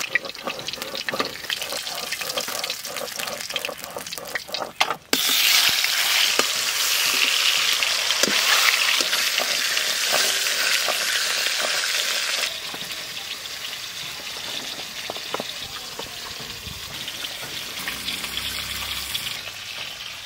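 Pieces of snakehead fish sizzling as they fry in hot mustard oil in a wok, with scattered clicks of a spatula turning them. The sizzle is louder from about a quarter of the way in until past the middle, then settles to a quieter steady hiss.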